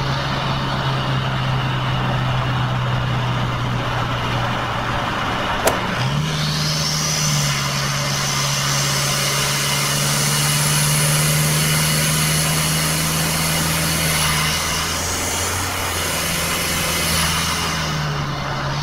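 Toyota 2KD four-cylinder turbodiesel driving at highway speed, heard from inside the cab: a steady engine drone over road noise. About six seconds in there is a sharp click, the engine note dips and steps back up, and a high whistle rises as it pulls again. The note shifts once more near the end.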